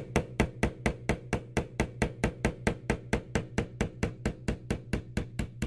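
A small hammer tapping a steel pin punch in a quick, even rhythm, about four to five taps a second, driving a roll pin out of a rifle's lower receiver.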